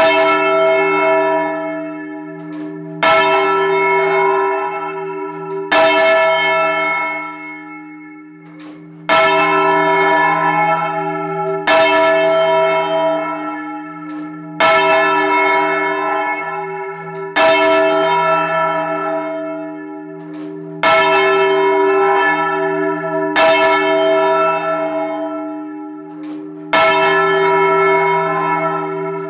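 The tenor, the heaviest of a ring of four change-ringing church bells, close up in the belfry, being rung up by hand. It sounds one stroke about every three seconds, each ringing on with a steady hum until the next.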